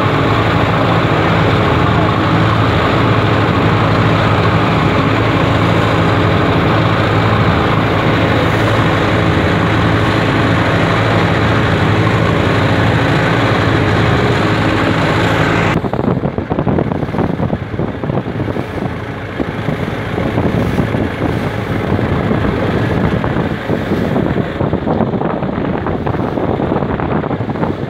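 A fishing boat's engine runs with a steady hum, over rushing wind and water. More than halfway through, the engine sound cuts off suddenly, leaving gusty wind buffeting the microphone and the wash of choppy sea.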